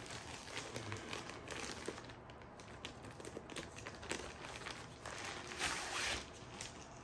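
Packaging being handled and torn open by hand: a run of crinkling and rustling with small clicks, and one louder rip or rustle a little before the end.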